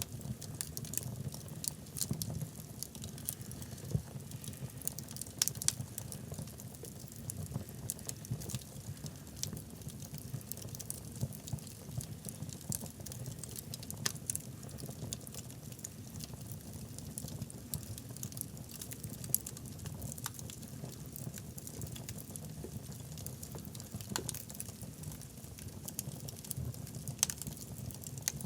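Wood fire burning in a fireplace: frequent irregular sharp crackles and pops from the logs over a steady low rumble.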